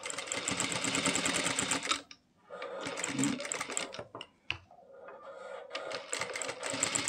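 JACK industrial lockstitch sewing machine stitching a fabric collar in three runs of a couple of seconds each, with short stops between them and a single click in the second pause.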